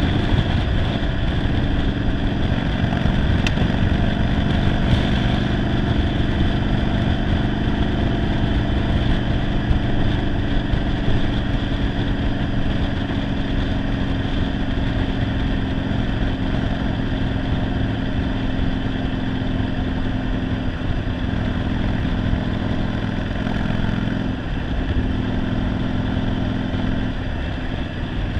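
1991 Yamaha Virago 750's air-cooled V-twin engine running steadily under way, heard from the seat with wind noise low down. The bike has a single-carburettor conversion and, by its owner's account, runs poorly.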